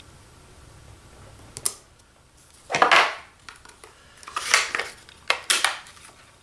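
Rubber stamp and ink pad being handled on a craft mat: a light click, a short scrape, then a rustle and two sharp clacks as the ink pad is picked up and moved off the mat.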